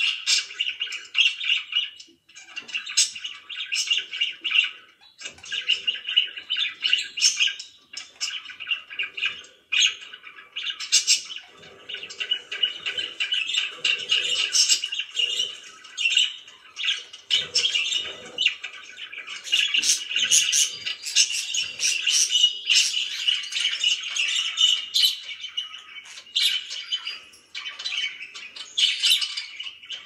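Several pet budgerigars chirping and warbling, a dense, near-continuous chatter of high chirps and squawks with a few brief pauses in the first ten seconds.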